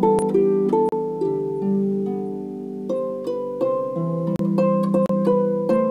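Harp music: plucked notes ringing on and overlapping, a melody over lower sustained notes.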